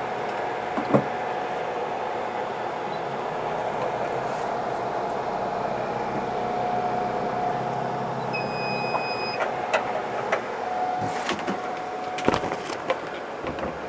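BGA rework machine running steadily with its blower and fans, a steady hum with a faint tone in it, while desoldering or reballing a laptop CPU. About eight seconds in it gives a single electronic beep lasting about a second, and several sharp clicks follow near the end.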